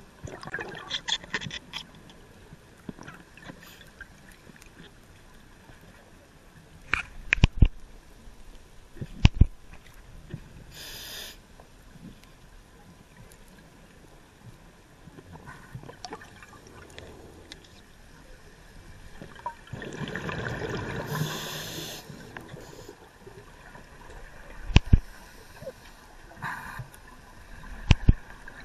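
Scuba breathing heard underwater: short hisses of inhaling through the regulator and gurgling rushes of exhaled bubbles, with a few sharp knocks.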